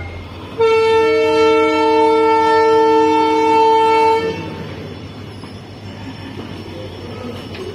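Train horn sounding one long, steady blast of about three and a half seconds, then the quieter rumble of the train's wagons rolling by on the rails.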